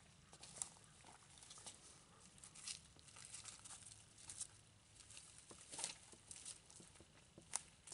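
Faint footsteps crunching through dry grass and leaf litter, an irregular crackle of steps, with a carried plastic bag rustling.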